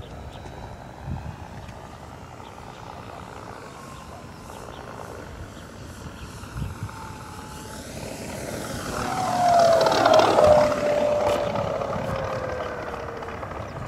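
Radio-controlled P-40 model aircraft with a TBS Mini engine-sound module, simulating a Packard-Merlin V12, flying past. A steady hum swells to its loudest about ten seconds in, with a whine that drops in pitch as it passes, then fades.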